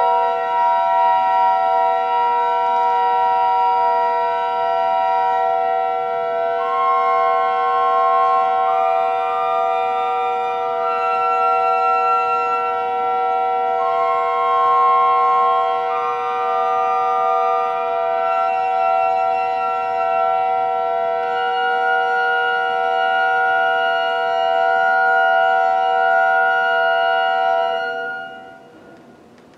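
Church organ playing slow, sustained chords, with the upper notes moving from chord to chord over a long held bass note. The final chord is released near the end and fades out.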